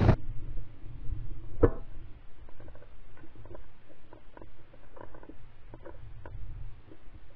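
Faint, muffled knocks and rustling from a shotgun-mounted camera as the gun is carried and swung, with one sharper click a little under two seconds in.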